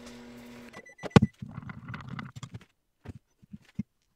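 A steady hum cuts off under a second in, then a sharp knock and about a second of rustling handling noise, followed by several light clicks: a glass measuring cup of melted plastisol being picked up and stirred, the stirrer tapping the glass.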